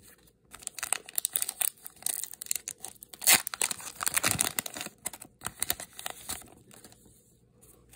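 A Pokémon trading-card booster pack's foil wrapper being torn open by hand, crinkling and crackling in a string of quick tears. The tearing begins about half a second in, is loudest around the middle, and dies away shortly before the end.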